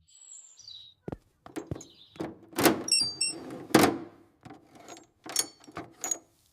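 Cartoon repair sound effects: a run of knocks and thuds as the tractor is worked on, two of them louder about a third and halfway in, with short high metallic pings among them.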